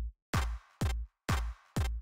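Wiggle software synthesizer playing a repeating percussive patch, about two hits a second. Each hit is a low thud whose pitch drops quickly, with a noisy hiss on top. The sound cuts off abruptly at the very end as playback is stopped.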